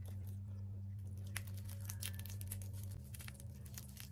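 Cooked crab shell being cracked and pulled apart by hand: a run of small, sharp crackles and clicks starting about a second in, over a steady low hum.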